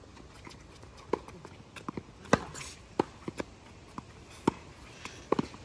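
Tennis rally on a hard court: a series of sharp pops from racket strikes and ball bounces, the loudest about two and a half seconds in, with shoes scuffing between shots.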